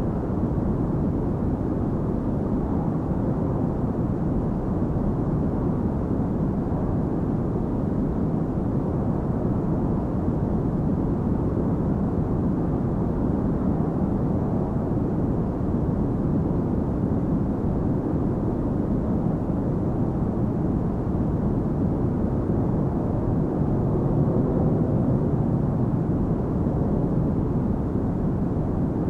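Steady airliner cabin noise: jet engine and airflow drone heard from inside the cabin, a dull, even rush with no breaks or changes.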